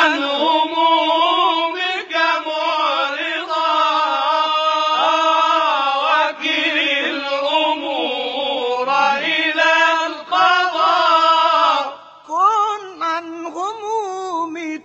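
A solo voice chanting a slow, ornamented melody in the style of Arabic devotional chant, with long held notes that waver in pitch and no instruments. About twelve seconds in it drops quieter into short gliding phrases.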